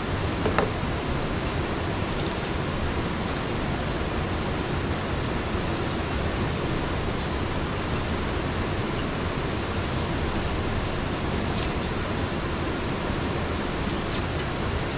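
Steady rushing of river water, an even hiss-like roar without change. A few faint clicks of a small knife peeling an onion.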